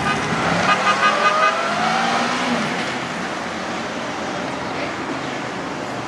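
A quick series of short horn toots about a second in, with a siren-like tone rising in pitch, from the police escort motorcycles. This is followed by steady road noise of motorcycle engines and traffic.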